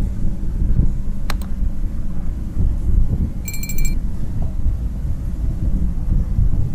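Wind buffeting the microphone on a ferry's open deck, a loud, uneven low rumble. A quick double click comes about a second in, and a brief high chime about halfway through, from the edited-in subscribe-button animation.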